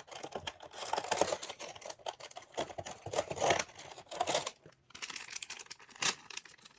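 Small glossy plastic accessory bag crinkling and rustling as it is pulled from cardboard packaging and torn open, with a sharp click a little after six seconds.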